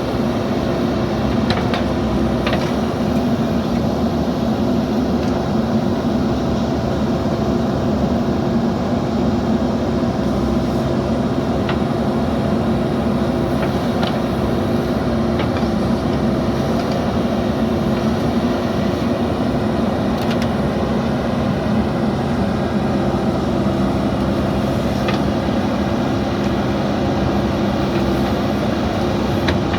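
JCB backhoe loader's diesel engine running steadily, with a few faint clicks scattered through.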